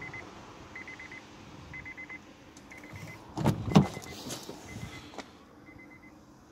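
A car's door-open/key-in-ignition warning chime: a short burst of rapid high beeps repeating about once a second. About three and a half seconds in there are two loud clunks of a car door being opened.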